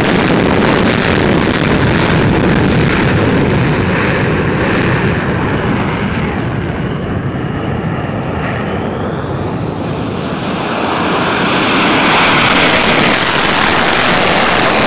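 F-15 fighter jet's twin jet engines at takeoff power, running loudly as the jet rolls down the runway and climbs away. The noise eases with a sweeping, shifting tone in the middle, then swells again near the end.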